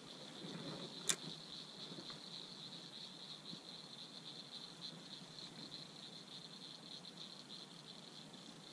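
Steady, faint chorus of insects trilling high, with a single sharp click about a second in.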